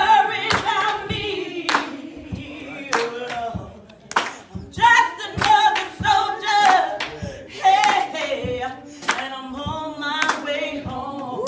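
Voices singing a song together, accompanied by repeated hand claps.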